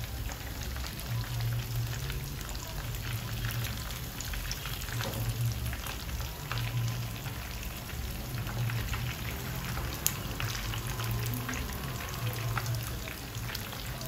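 Croaker fish pieces deep-frying in a pan of hot oil: a steady sizzling crackle with many small pops, and one sharp click about ten seconds in.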